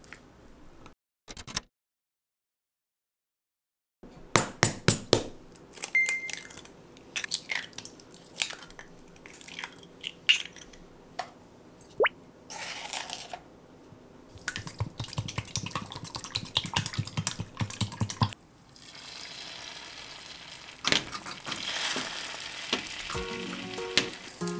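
Kitchen prep sounds: sharp taps and clinks in a stainless-steel bowl as eggs and sugar go in, then a quick rhythmic run of whisking strokes, then beaten egg sizzling steadily in a hot rectangular tamagoyaki pan. Light background music comes in toward the end.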